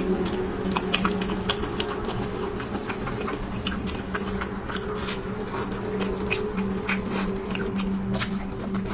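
Close-up eating sounds: chewing with many small, irregular clicks and ticks, over a steady low hum.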